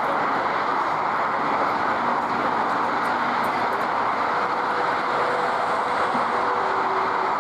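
Airbus A320 jet engines running at takeoff power, a steady, even roar with no bangs or breaks.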